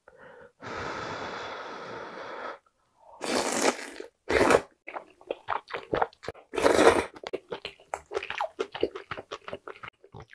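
Close-miked eating of glass noodles (dangmyeon) in beef-rib soup: a long slurp near the start, several loud short slurps in the middle, then rapid wet chewing clicks.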